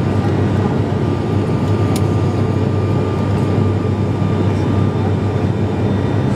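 Airliner's engines and the rush of air, heard inside the cabin in flight: a steady drone with a constant whine at one pitch. A brief click about two seconds in.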